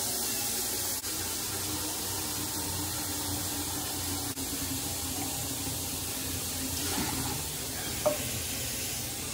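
Kitchen tap running steadily into a container in the sink, filling it with water. There is a light knock about eight seconds in.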